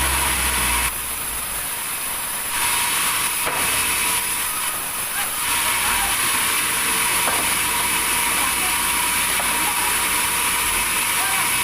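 Sawmill machinery running with a steady, dense mechanical noise, mostly high-pitched hiss with some rattle.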